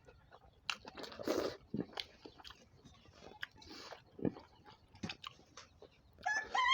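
A person chewing a mouthful of hot rice and tomato, with uneven mouth clicks and short smacks. Near the end a rooster starts to crow.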